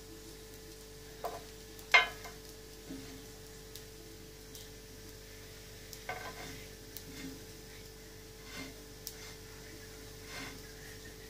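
Small barley-grit harsha cakes frying gently in an oiled pan, with a metal spatula scraping and tapping against the pan now and then; the sharpest tap comes about two seconds in.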